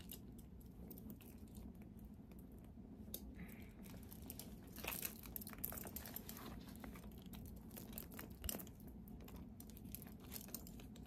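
Faint handling noise: scattered small clicks and short rustles from hands working a quilted denim shoulder bag, its metal chain strap and a paper hang tag.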